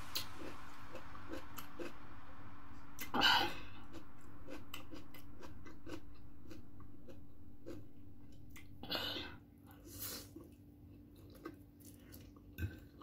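A person slurping and chewing instant ramen noodles close to the microphone, with many small wet mouth clicks. There are louder slurps about three seconds in and again around nine and ten seconds.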